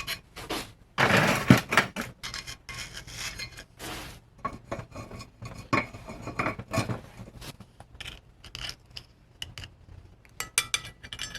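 Irregular scraping and rubbing with light metallic clinks: freshly sand-cast zinc pieces being handled and rubbed free of casting sand.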